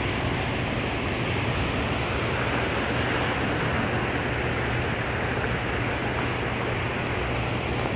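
Fast, swirling river current rushing steadily, an even noise without breaks.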